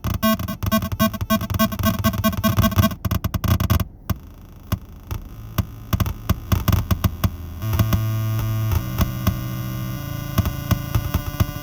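Error Instruments Data Synth making glitchy electronic noise: rapid clicks over buzzing pitched tones that shift as its knobs are turned. The sound changes character about four seconds in and again near eight seconds, where a steadier low buzz takes over.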